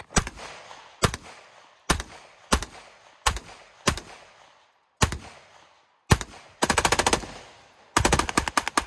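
Rifle gunshots fired at a pickup truck. There are single shots about every second at first, then a quick string of rapid shots about six and a half seconds in, and a fast, continuous volley of shots from about eight seconds on.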